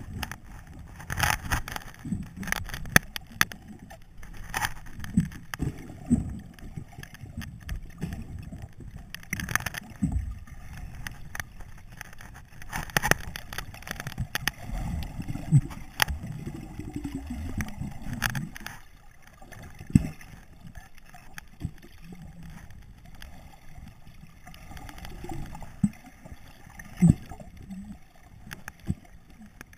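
Muffled underwater sound heard through a submerged camera housing: low, uneven water movement and gurgling, with scattered sharp clicks and knocks.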